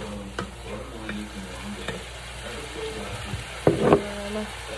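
Ground meat frying in a skillet, stirred with a utensil that clicks against the pan. A louder clatter comes a little under four seconds in.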